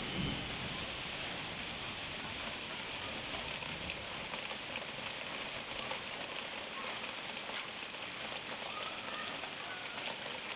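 Heavy rain falling steadily on a paved courtyard: a constant, even hiss of drops striking the pavers.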